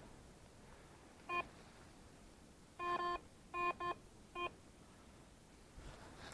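Garrett ACE 350 Euro metal detector giving signal beeps over a buried metal target, five beeps at one pitch: a short one about a second in, a longer one, a quick pair and a last short one.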